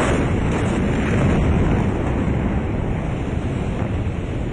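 Blast of a huge ammonium-nitrate explosion heard through phone microphones. It comes in suddenly and loud, then holds as a steady deep rumble that overloads the microphones.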